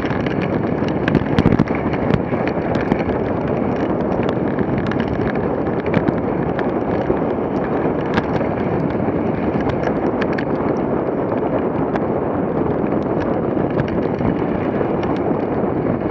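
Dogsled runners scraping and hissing over packed snow at speed: a steady rushing noise with scattered sharp clicks and knocks from the moving sled.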